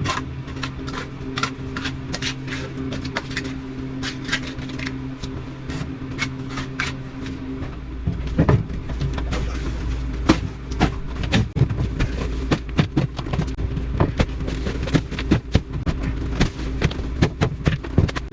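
Tools scraping and clinking on wet concrete, many short sharp strokes, while concrete is mixed and spread by hand. A steady machine hum runs underneath, and a deeper rumble comes in about eight seconds in.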